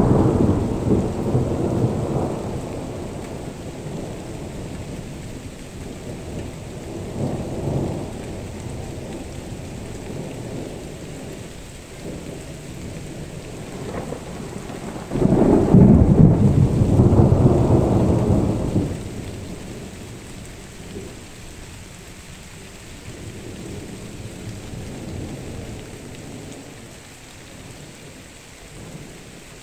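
Thunder rumbling during a rainstorm. A peal fades over the first few seconds and a smaller one follows about seven seconds in. About fifteen seconds in comes the loudest, starting suddenly and rolling on for about four seconds, then fainter rumbling, all over the steady hiss of rain.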